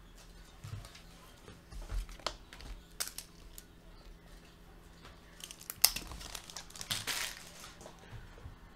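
Paper and trading cards handled on a padded tabletop: scattered soft rustles and light taps, with a louder crinkling rustle about six to seven seconds in.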